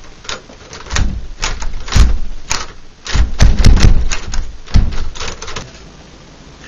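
A loud, irregular run of sharp clicks and knocks mixed with dull thumps, coming in quick clusters and stopping near the end.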